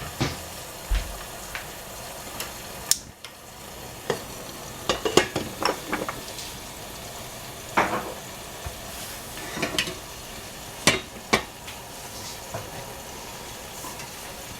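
Food sizzling as it fries in hot oil in a pan, with a steady hiss. Utensils knock and clink against the pan and dishes a dozen or so times, irregularly; the hiss dips briefly about three seconds in.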